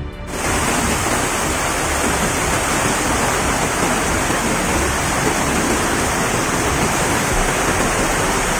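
Muddy flash-flood water from an overflowing river rushing steadily past, a dense even wash of noise that starts abruptly just after the opening.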